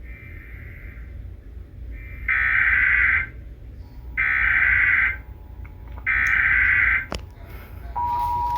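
Emergency Alert System SAME header: three loud warbling data bursts, each about a second long and about a second apart, encoding a Child Abduction Emergency. Near the end the steady two-tone EAS attention signal begins.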